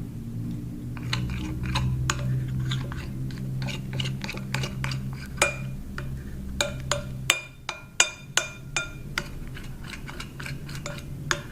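A utensil clinking and tapping against a bowl in quick, irregular strokes as slime is stirred and mixed. A steady low hum runs underneath and stops about seven seconds in.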